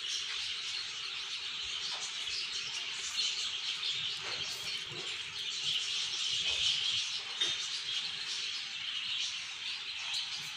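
Many small birds chirping and twittering at once, a dense, steady chorus.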